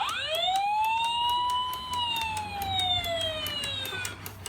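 Electronic siren sound effect played through a toy sound book's small speaker: one wail that rises quickly for about two seconds, then falls slowly and stops near the end, with a fast ticking under it.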